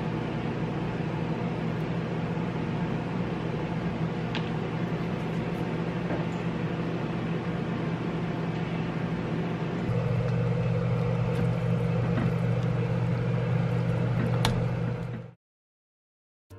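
Steady electric motor hum of a running kitchen appliance, with a couple of light clinks of tableware. The hum grows louder about ten seconds in and cuts off suddenly near the end.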